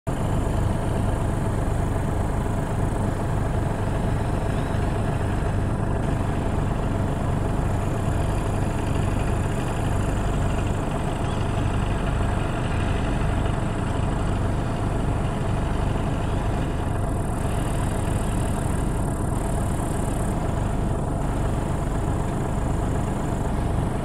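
John Deere 7250R tractor's diesel engine running steadily under load, along with the working drive of a Claas Rollant 375 RC round baler baling hay.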